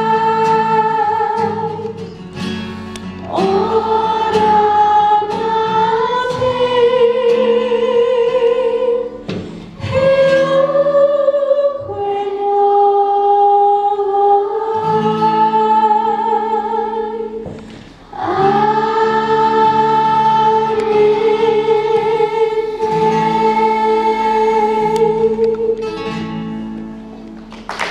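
Singing with acoustic guitar accompaniment: a children's choir and a solo singer on a microphone hold long, slow notes, pausing briefly between phrases.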